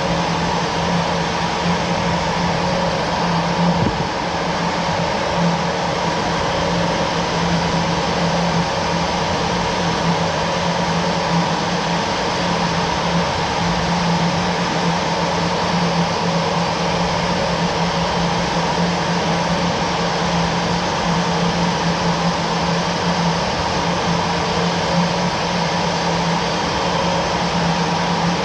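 Jet aircraft engine running steadily: a constant loud drone with a deep hum and a higher steady whine, unchanging throughout.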